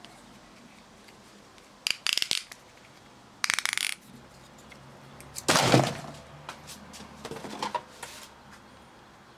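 Small hard objects clattering and knocking in four short bursts of rattling clicks, the third the loudest.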